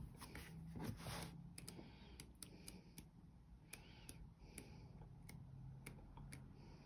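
Faint scattered clicks and rustles of paper as the pages of a pad of patterned paper are turned.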